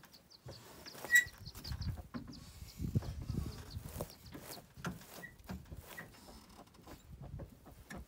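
Scattered light clicks and knocks, with a run of short, high bird chirps in the first second or so and a few single high notes later.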